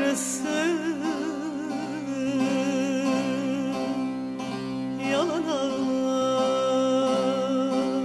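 Background music: an ornamented melody with heavy vibrato over a steady low drone.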